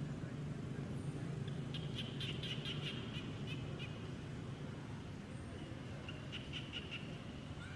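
A bird calling in two quick series of rapid, high chirps, the first about two seconds in and a shorter one near the end, over a steady low hum.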